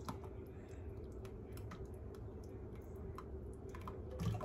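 Thick, flour-thickened barley drink pouring from a saucepan through a wire-mesh strainer, a quiet steady pour with scattered small ticks and drips over a faint steady hum.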